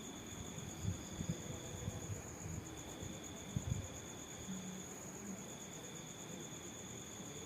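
Insects trilling: one high, steady trill runs throughout, and a lower trill comes and goes every couple of seconds. A few soft, low thumps come in the first four seconds.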